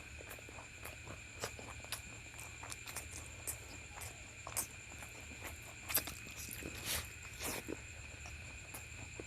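Close-up eating sounds: chewing with irregular wet mouth clicks and smacks from eating luchi with egg masala. Underneath runs a steady high-pitched whine and a low hum.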